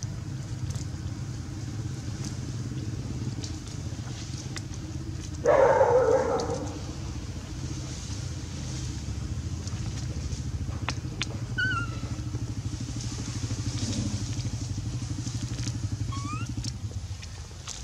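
A steady low motor hum, like an engine running, that stops near the end. About five seconds in, a loud sudden sound lasts about a second, and a few short rising squeaks come later.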